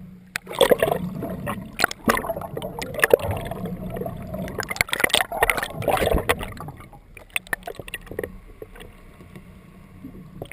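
A boat's engine running steadily, with a busy stretch of sharp, irregular knocks and clatter that dies down after about seven seconds.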